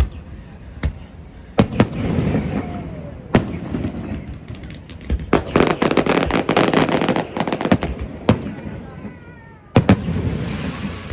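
Fireworks going off: a series of sharp bangs from bursting shells, with a dense run of rapid crackling in the middle.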